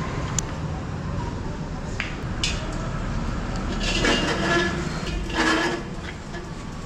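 Metal clinks from a steel gate latch, then two louder bursts of rattling as a bicycle is wheeled out over a tiled floor.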